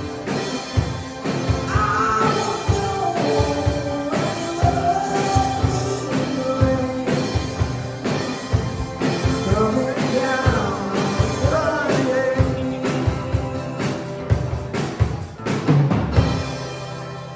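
Rock song with singing over a band and drum kit, a steady beat under the sung line, easing off near the end.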